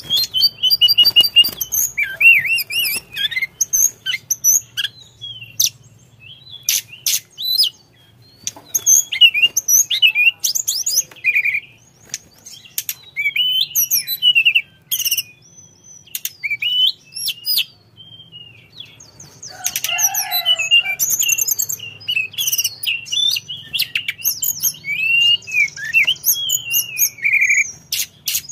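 Male blue flycatcher (tledekan) singing: a stream of varied, rapid whistled phrases and trills broken by short pauses, with sharp clicks between some phrases.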